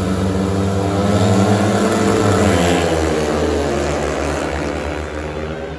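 Four speedway motorcycles, 500 cc single-cylinder methanol engines, revving hard and accelerating away from the start gate. The sound is loudest about a second and a half in, then fades as the bikes pull away toward the first bend.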